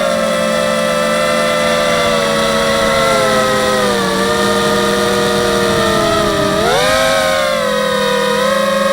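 A 250-size FPV quadcopter's electric motors and propellers whining as it flies. The pitch sags slowly, dips sharply about six seconds in and swings quickly back up as the throttle changes.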